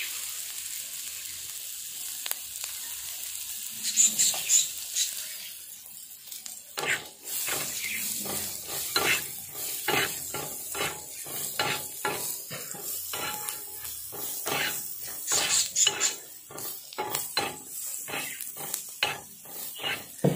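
Chopped onions sizzling in hot oil on an iron tawa. From about seven seconds in, a metal spatula scrapes and stirs them across the pan in quick repeated strokes.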